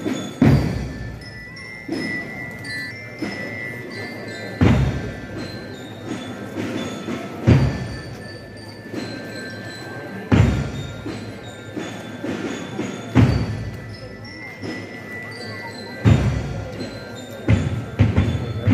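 Slow processional march: a deep drum stroke about every three seconds under short held high notes, with a murmur of the crowd beneath.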